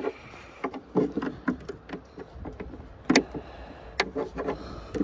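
Handling noises in a car: rustling with several sharp clicks and knocks, about a second in, near three seconds and again near four, as a charging lead is plugged into the car's 12-volt socket.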